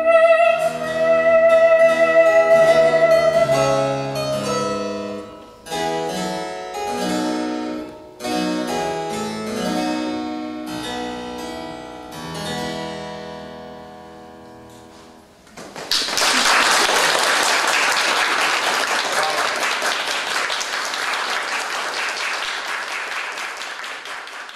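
A soprano holds a long final note over harpsichord accompaniment. The harpsichord then plays the closing bars alone and dies away. Applause breaks out about sixteen seconds in and fades near the end.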